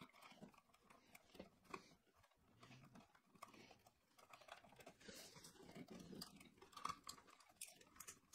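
Near silence with faint crackling and small clicks of electrical wires being handled and twisted together by hand.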